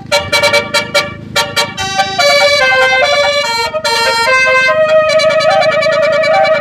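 Basuri telolet multi-tone bus horn playing a melody of stepping notes: short separated toots at first, then longer notes, ending on one long held, warbling note.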